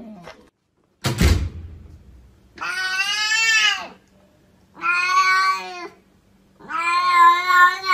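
A sharp thump about a second in, then a cat giving three long, drawn-out meows, the last the longest, each gently arching in pitch, heard as "I love you".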